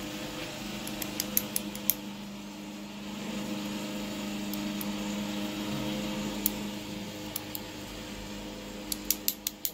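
Light, sharp clicks of small picking tools and pins against a brass lock cylinder as pins and a spring are worked out of it. The clicks come in a quick run of about five a second in, a few single ones in the middle, and another quick run near the end, over a steady low hum.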